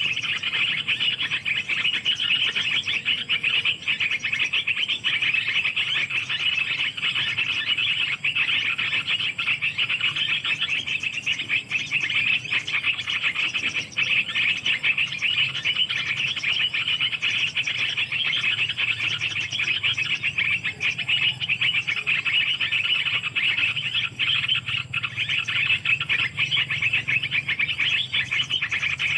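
A dense, steady chorus of calling animals: a fast pulsing buzz, pitched fairly high, that never lets up.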